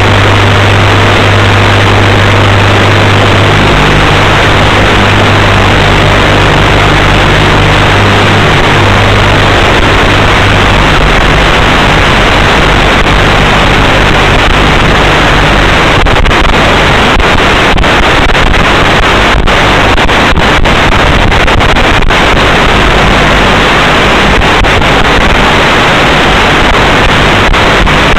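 Loud, steady hiss of static from the analog FPV video receiver's audio channel. A low hum sits under it for the first ten seconds or so, and from about halfway there are brief crackling dropouts as the radio signal breaks up.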